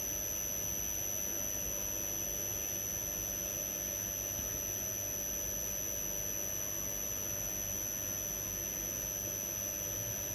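Steady background hiss and hum with a thin, constant high whine, unchanging throughout: the recording's own noise floor, with no other sound.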